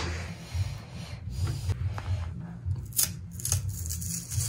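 Thick peel of a green plantain being scored with a knife and pried off by hand: a handful of short, crisp snaps and rubs that sound like celery.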